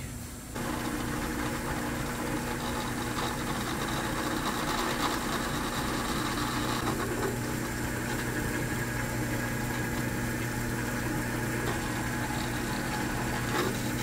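A drill press motor starts about half a second in and runs steadily, with a steady hum under the noise of a hole saw cutting through a tape-covered panel. It stops right at the end.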